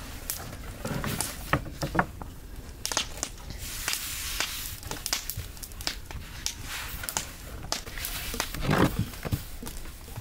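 Long wooden rolling pin rolling and knocking on a floured wooden board as thin dough is rolled up around it, with hands sliding and pressing on the dough: an irregular run of soft knocks, clicks and brushing sounds, a few heavier knocks about a second in and near the end.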